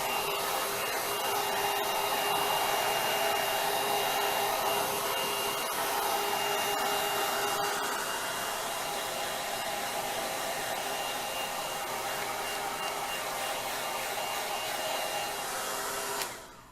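Trezoro ceramic tourmaline ionic hair dryer running on its high setting: a steady blowing rush with a faint whine, switched off shortly before the end.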